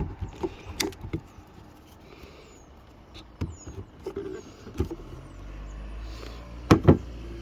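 Hands handling a door lock actuator and tools, giving scattered sharp clicks and knocks, with two louder clicks near the end. A steady low hum comes in about five seconds in.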